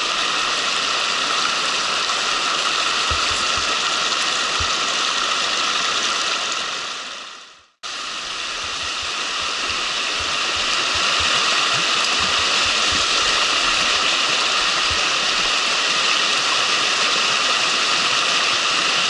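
Mountain stream rushing over rocks in a steady wash of water. About eight seconds in the sound fades out to nothing and then comes straight back, a little louder.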